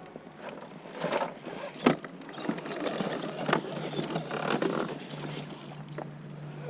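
RC rock crawler working over rocks: scattered knocks and clatter, the loudest about two seconds in, with a steady low hum joining about five seconds in.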